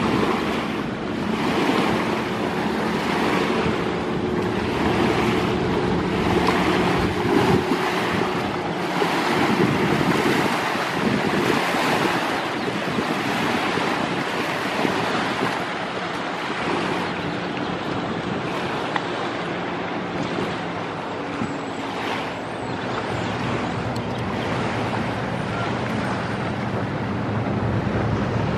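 River water rushing and lapping against the bank, with wind buffeting the microphone and a faint steady low hum underneath.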